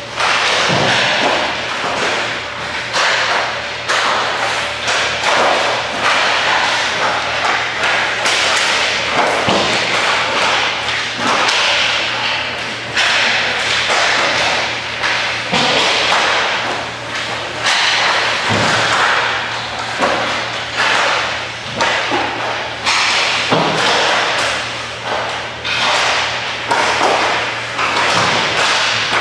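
Hockey sticks slapping pucks and pucks banging into the boards and net, one after another at irregular intervals, over skates scraping on the ice. The hits ring out in the rink's large hall.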